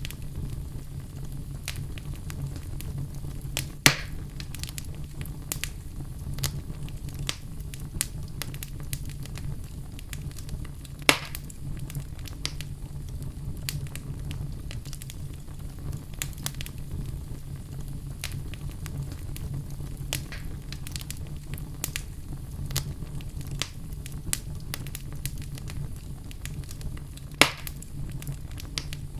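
Wood fire burning in a fireplace: a steady low rumble of the flames with constant small crackles and three louder pops, about four seconds in, eleven seconds in and near the end.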